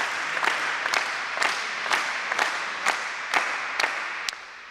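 Audience applause in a sports hall, with a regular clapping beat about twice a second, dying away towards the end.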